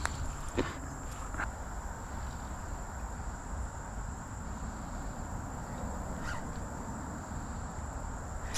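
Insects trilling steadily in a single high, thin tone, over a low rumble with a few faint clicks.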